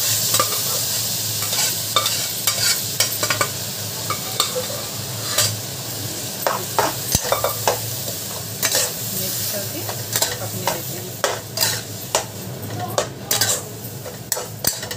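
Cooked tivra (grass pea) greens poured into a hot kadhai of frying brinjal, sizzling, then stirred with a metal spatula that scrapes and clicks against the metal pan many times.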